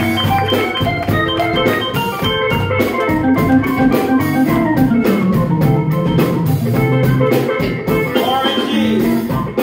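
Live blues band playing an instrumental passage: an organ-toned keyboard holds sustained chords over a steady drum beat, with a bass line stepping down about halfway through.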